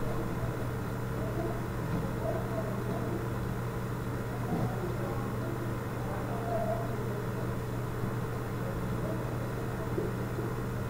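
Steady low hum with faint room noise and no speech.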